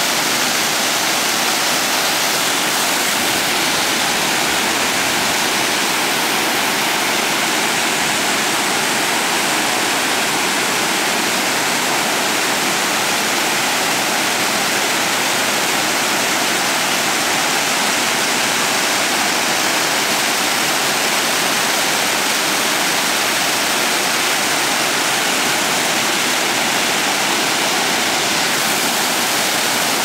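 Dokuzak waterfall, several cascades pouring over mossy rocks into a pool: a steady, even rush of falling water.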